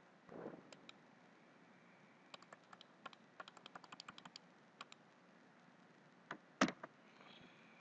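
Keystrokes and clicks on a computer keyboard and mouse: a quick run of about a dozen light clicks, then a louder double click near the end.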